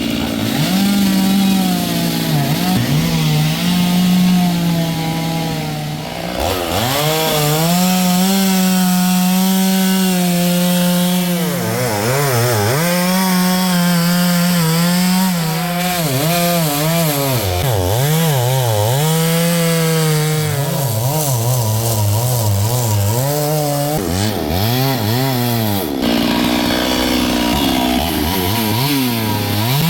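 Stihl two-stroke chainsaw cutting wood at high revs. Its engine pitch sags again and again as the chain bites into the cut, then climbs back; the saw eases off briefly about six seconds in.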